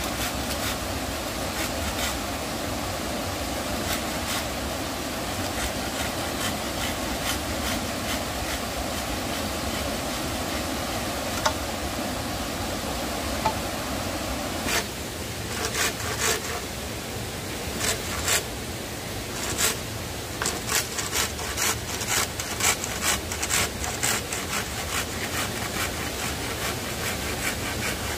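Handsaw sawing through green bamboo: a rasping back-and-forth of the blade, then, about halfway in, a run of sharper, separate strokes and knocks as the cut goes on.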